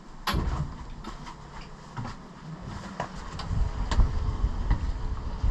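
Low rumble of wind on the microphone and sea noise aboard a sailing yacht under way, growing louder after the middle, with scattered sharp clicks and knocks.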